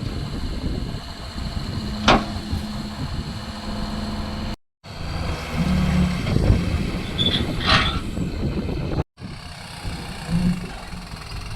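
Heavy engine running steadily with a low rumble, with a sharp clank about two seconds in and another near eight seconds. The sound cuts out for an instant twice.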